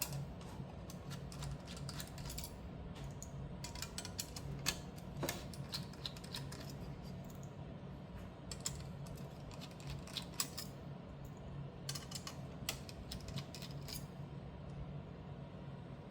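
Irregular small clicks and ticks of a screwdriver working small screws out of a graphics card's metal backplate and cooler. A faint low steady hum runs underneath.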